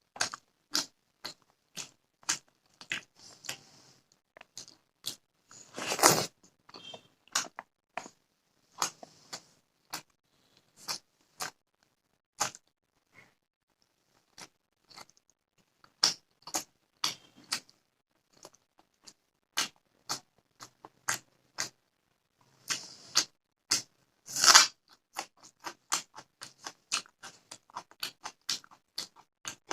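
Close-miked chewing of fish curry and rice: a steady run of short wet smacks and clicks from the mouth, with two louder crunchy bites, about six seconds in and again around twenty-four seconds.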